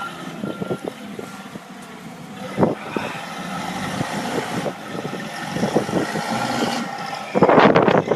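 Forklift running, its reversing beeper stopping just after the start, with scattered knocks and crunches throughout. A loud rushing burst comes near the end.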